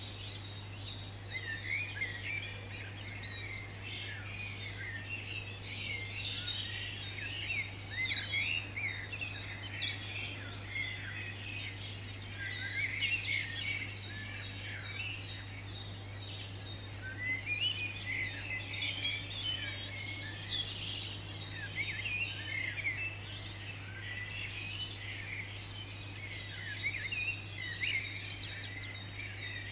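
A chorus of several songbirds singing at once: a dense, unbroken stream of chirps, trills and warbles, with a steady low hum underneath.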